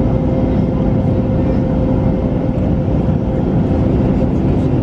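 Steady cabin noise of an Airbus A321neo airliner in flight on its descent: engine and airflow noise with a constant hum.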